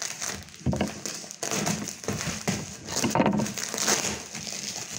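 Plastic mailing bag crinkling and rustling in irregular bursts as it is handled and pulled open by hand.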